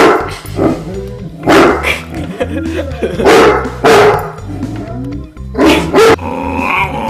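A dog barking repeatedly, about seven short barks at uneven intervals, over background music.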